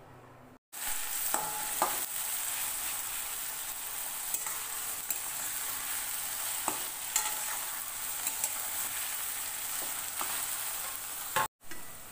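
Sliced onions sizzling as they fry in hot oil in an aluminium kadai, with a spatula scraping and clicking against the pan now and then. The sound cuts out briefly near the start and again near the end.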